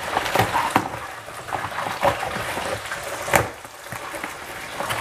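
Box cutter slicing through packing tape on a cardboard box and the cardboard flaps being pulled open: a string of short scrapes, crinkles and rustles, the loudest a little past the middle.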